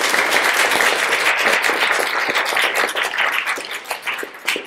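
Audience applauding: dense clapping that thins into scattered individual claps near the end.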